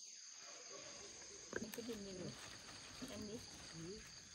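Faint, steady, high-pitched chirring of insects, with a few soft, low voice sounds and a single click from about a second and a half in.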